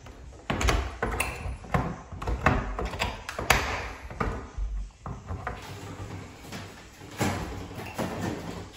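Irregular knocks and clicks from handling a prehung interior door: the wooden slab and frame bumping as they are moved, and metal staples being pried out of the frame with pliers. The loudest knock comes about three and a half seconds in.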